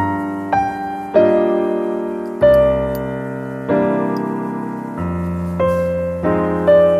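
Slow, gentle piano music, single notes and chords struck every second or so and left to fade.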